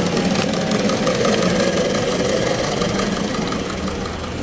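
Ride-on live-steam model of an Alishan Shay geared steam locomotive running, with a fast, steady mechanical beat from its engine and gearing, fading a little toward the end as it moves away.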